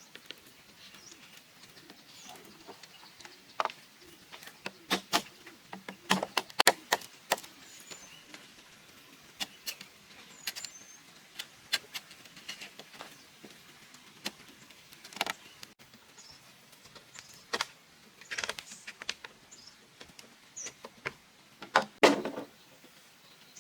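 Irregular sharp knocks and clacks of bamboo being handled and worked, some in quick clusters, the loudest near the end. A few short bird chirps are heard among them.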